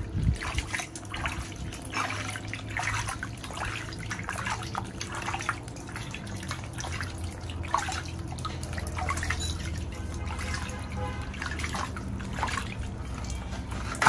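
Water splashing and dripping in a plastic basin as hands scoop and rub water over a baby monkey being bathed, in many small, irregular splashes and drips.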